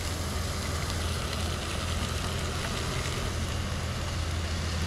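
Chopped vegetables and beef tenderloin tips sizzling in olive oil in a pot on a canister gas camp stove, over the stove's steady burner noise.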